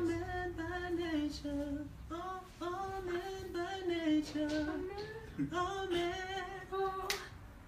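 A woman singing a melody unaccompanied, in phrases with short breaths between them. Near the end, finger snaps start to keep time, about one every 0.7 seconds.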